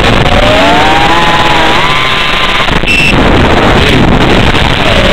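Electric motor and propeller of an FPV flying wing heard over its analog video link's audio: a whine that rises and falls in pitch with the throttle under heavy hiss, with a brief crackle of signal breakup about three seconds in.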